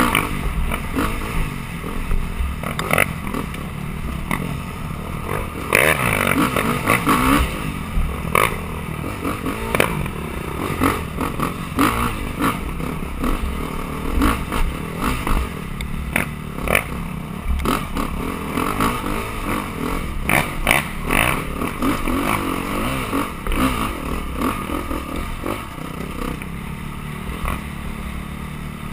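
Dirt bike engine revving up and down while riding, heard from a helmet-mounted camera, with frequent knocks and clatter from the bike over rough ground.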